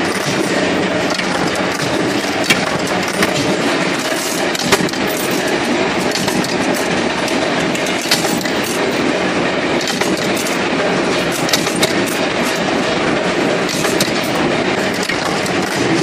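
Steady loud clatter of metalworking machines forming steel padlock shackles, with a few sharp metal clicks scattered through it.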